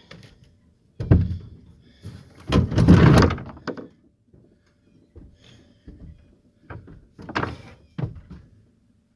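A series of knocks and thuds, with one louder, longer clattering impact about three seconds in and a few more knocks near the end.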